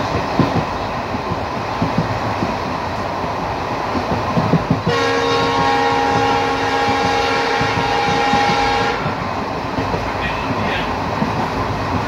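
Running noise of a train carriage in motion, with wheels knocking over the rail joints. About five seconds in, a train horn sounds one steady chord-like blast lasting about four seconds, then cuts off.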